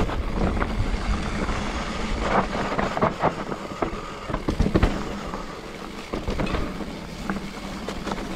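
Mountain bike riding down a rough dirt trail: tyres on dirt under irregular sharp knocks and rattles from the bike, thickest in the middle and easing near the end.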